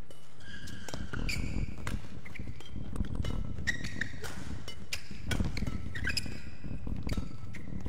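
Badminton rally: rackets strike the shuttlecock with sharp cracks every second or so, while court shoes squeak and thud on the court mat as the players move.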